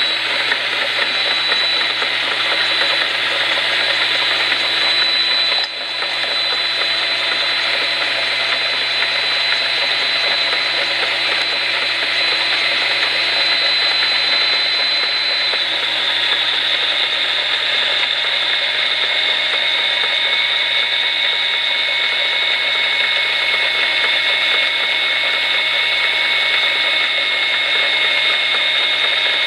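Handheld rotary tool used as a die grinder, running at high speed with a steady high whine, over the running of a lathe spinning a rubber workpiece against the bit. The whine dips briefly about six seconds in and drops slightly in pitch about halfway through.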